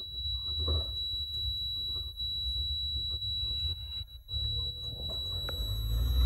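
A steady, high-pitched electronic tone, like a buzzer's continuous whine, held at one pitch throughout, over a low rumble of handling noise.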